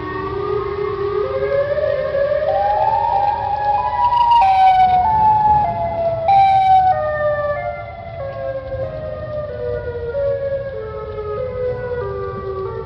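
Warning siren for an emergency alert, starting abruptly and rising in pitch to a peak about four seconds in, then winding down in small steps. Several tones sound together throughout.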